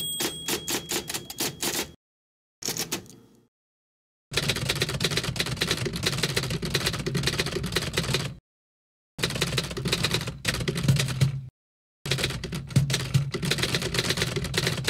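Mechanical typewriter keys clacking in several separate takes with abrupt silent gaps between. It opens with a short run of distinct keystrokes, then a brief burst that fades out about three seconds in, then long stretches of fast, continuous typing.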